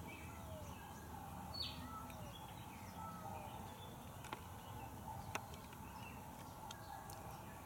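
Faint outdoor ambience with small birds chirping in short, scattered calls, a low steady background hum, and a couple of light clicks about halfway through.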